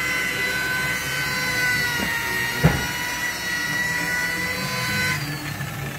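A steady, high-pitched motor whine with several tones over a mechanical hum; it stops about five seconds in. One sharp knock sounds about halfway through.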